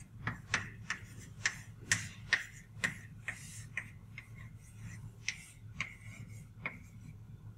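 Chalk tapping and scraping on a chalkboard as an equation is written: a string of short sharp taps, about two a second.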